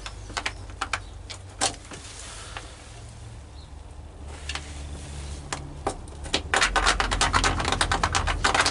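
Scattered clicks and knocks of cables and plugs being handled, turning into a dense clattering rattle about two-thirds of the way through.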